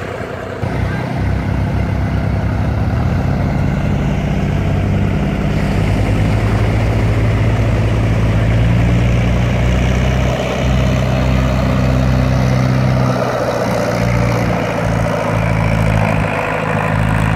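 Beach launch tractor's diesel engine picking up about a second in and running steadily under load as it tows the lifeboat on its trailer into the surf, with waves washing around it.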